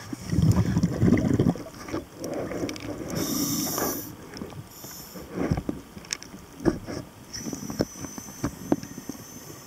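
Underwater noise around a diver's camera: a loud rush of bubbles in the first second and a half, more bubbling and hissing up to about four seconds in, then scattered sharp clicks. A faint steady high whine starts near the end.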